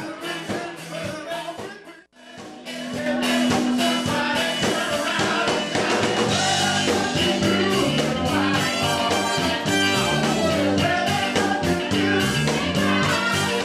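Rock band music with a singer over drums, bass and guitar, cutting out briefly about two seconds in, then coming back with a steady beat and a strong bass line.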